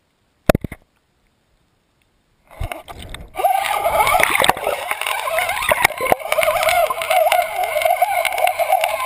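Water rushing and gurgling against a GoPro's waterproof housing as it is towed quickly through lake water on a fishing line, starting about three seconds in and then running steadily. A short knock about half a second in.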